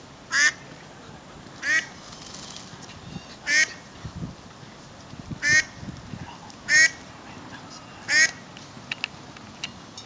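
A duck quacking six times, each quack short and loud, spaced a second or two apart.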